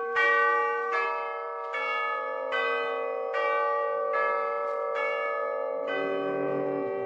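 Chimes playing a slow melody as a music bridge: about eight notes, a new one struck a little under once a second, each left ringing under the next, with a lower note joining near the end.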